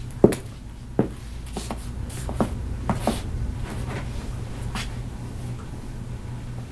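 Scattered light clicks and knocks, about six in all and mostly in the first five seconds, over a steady low hum in a small room: the sounds of people moving about and handling small things.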